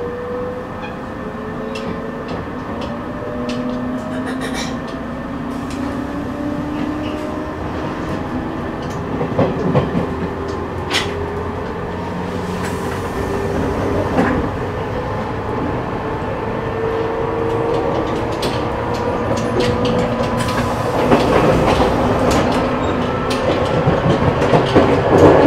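Ride noise inside a 185 series EMU motor car, heard from the end deck, with the traction motors' whine rising steadily in pitch as the train picks up speed. Wheels click over rail joints now and then, and the running noise grows louder and rougher near the end.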